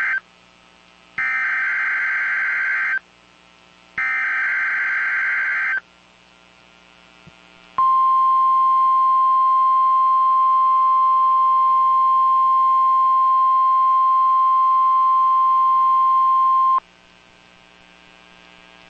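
NOAA Weather Radio emergency alert tones. The buzzy two-pitch SAME header data bursts end, then sound twice more, each about two seconds long with a second's gap between them. After a short pause, the steady single-pitch 1050 Hz warning alarm tone holds for about nine seconds and then cuts off.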